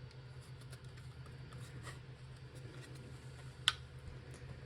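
Faint rubbing and light scraping of hands working on a mini PC's internal parts, with one sharp click about three and a half seconds in, over a steady low hum.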